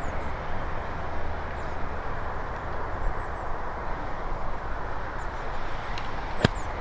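Steady outdoor background rumble and hiss, with one sharp club-on-ball strike about six and a half seconds in: a golf chip shot played out of trouble.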